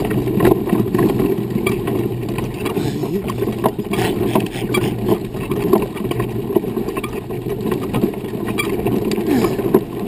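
Wheelchair rolling over a dirt and pine-needle trail: a steady low rumble with frequent small clicks and rattles from the wheels and frame.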